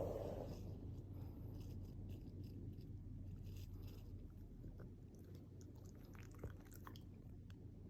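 Shiba Inu chewing and gnawing vigorously, faint scattered crunching and scraping.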